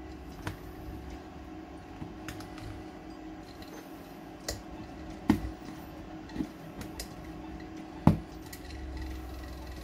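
A plastic Tupperware lid being pressed and snapped onto a bowl, giving a few sharp plastic clicks, the loudest about five and eight seconds in. Under them runs the steady hum of a homemade vibrating tumbler driven by an unbalanced 12 V PC fan.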